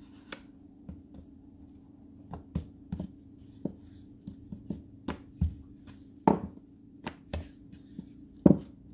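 Wooden rolling pin rolling out a ball of dough on a floured granite countertop: a string of irregular light knocks and clicks, with two louder knocks about six seconds in and near the end, over a faint steady hum.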